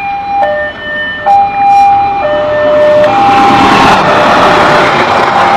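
Railroad level-crossing alarm sounding an alternating two-tone signal, high then low, switching about once a second. About three seconds in, a diesel locomotive hauling a passenger train passes close by, and its engine and wheel noise rise over the alarm tones.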